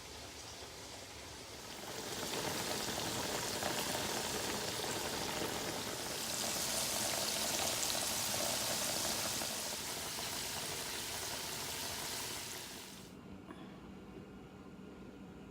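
A steady rush of liquid pouring in a stream. It starts about two seconds in, gets brighter in the middle and cuts off suddenly near the end.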